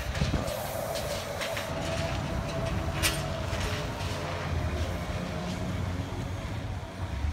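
Electric trolleybus driving past close by: a steady traction-motor whine over the low rumble of the bus and street traffic, with a sharp click about three seconds in.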